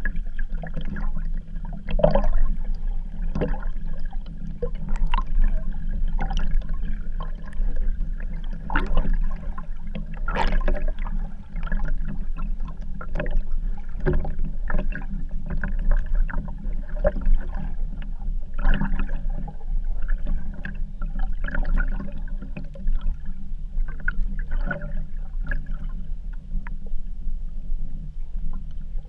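Underwater sound picked up through an action camera's waterproof housing: a steady low muffled rumble with irregular sharp clicks and knocks scattered through it.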